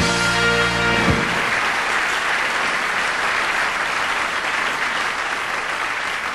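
Hall audience applauding steadily, with a brief held musical chord in the first second.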